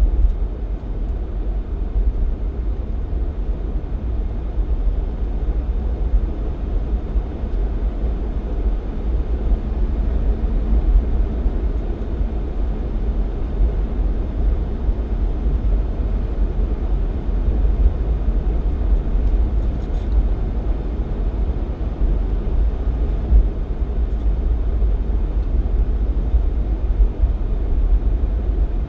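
Jeep Cherokee XJ driving, a steady low rumble of engine and road noise that holds even throughout.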